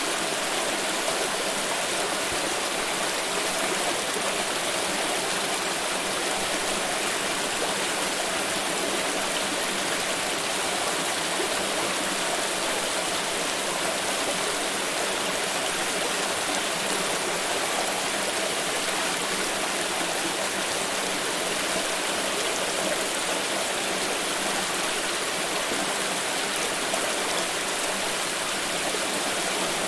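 Flowing water, like a stream running over rocks, a steady rushing wash of sound.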